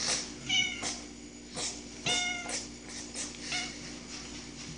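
A pet cat meowing three times in short calls, the middle one the longest.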